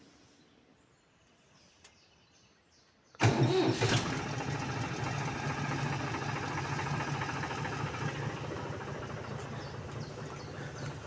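An engine starts suddenly about three seconds in, louder for the first second, then keeps running at a steady idle.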